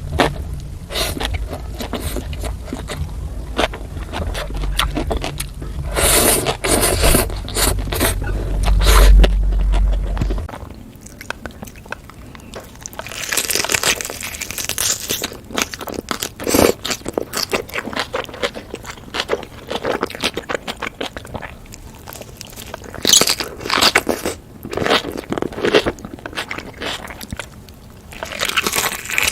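Close-miked eating sounds: crunching and chewing of kimchi and noodles in irregular bursts of bites. A low steady hum sits under the first third and stops abruptly at a cut to another eater.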